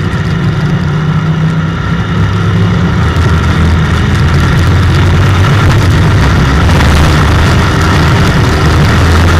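IMCA stock car's V8 engine running under load, heard from inside the cockpit, with a steady rush of noise over it; it grows a little louder about three seconds in.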